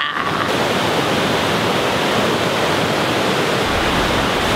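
Steady rushing of a fast whitewater river running high with runoff, "totally blown out".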